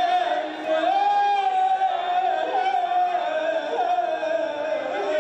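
Singing: a high voice holding long, wavering notes that slide between pitches, with lower voices or sounds beneath.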